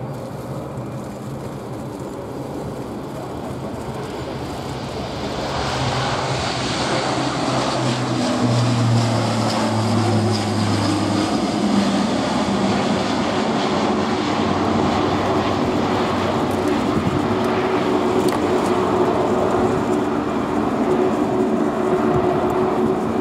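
Airbus A400M's four TP400-D6 turboprop engines at take-off power as the aircraft rolls and climbs away. The sound grows louder about five seconds in, then holds as a steady propeller drone with low humming tones.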